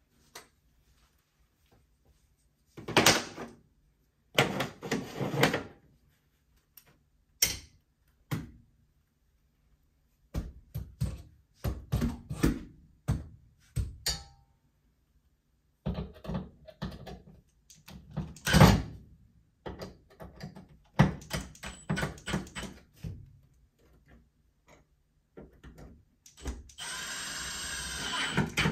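Knocks and clatter of tools and mount hardware being handled, in short bursts with pauses between. Near the end a power drill starts and runs steadily.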